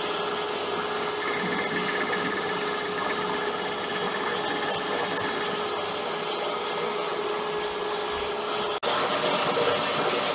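Metal lathe running with its chuck spinning a homemade die blank while a carbide tool cuts the die's internal thread: a steady machine hum with a constant tone. A fast, high-pitched rattle from the cut lasts about four seconds in the first half, and the sound breaks off abruptly for a moment near the end before the lathe runs on.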